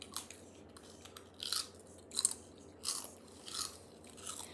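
Someone chewing crunchy snack chips: about six irregular crunches, one every half second to a second.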